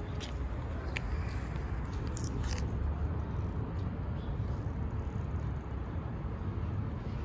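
Steady low outdoor rumble, with a few light clicks in the first three seconds.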